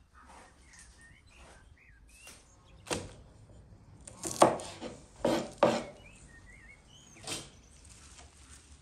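Kitchen knife chopping green onion root ends on a wooden cutting board: about five separate sharp strikes, the loudest in the middle. Faint bird chirps in the background.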